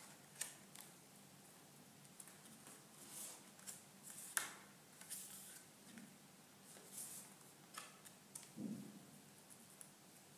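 Card pages of a bound postcard book being turned by hand: soft, faint paper swishes and light taps, with one sharper click about four and a half seconds in and a soft thump near nine seconds.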